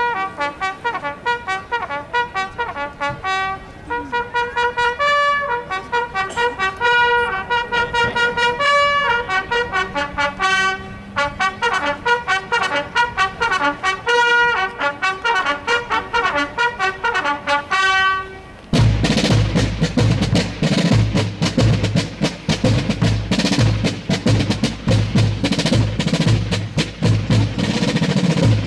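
Army field-music bugles sound a military call in clear, separate notes, with quick runs in its later part. About two-thirds of the way through, snare and bass drums come in loudly with rapid rolling strokes.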